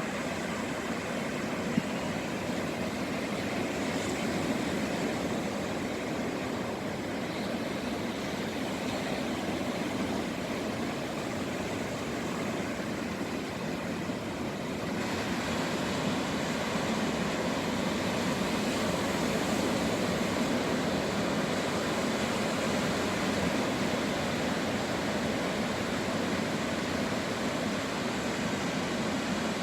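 Steady rush of surf breaking on the beach, a little louder and brighter from about halfway.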